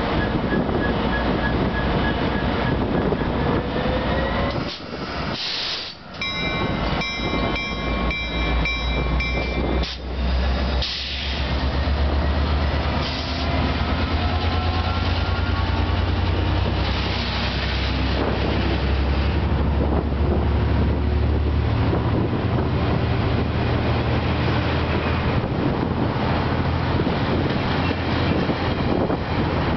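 EMD F59PH diesel locomotive pulling away with its train. Its engine comes up to a deep, steady rumble from about ten seconds in, while the coaches roll past. A few seconds in, ringing metallic tones strike repeatedly for about four seconds.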